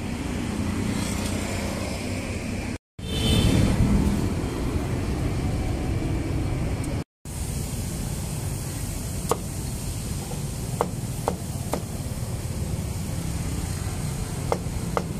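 A cleaver chopping roasted meat on a round wooden chopping block: several sharp, separate chops in the second half. Under it runs steady street traffic noise, louder for a few seconds near the start.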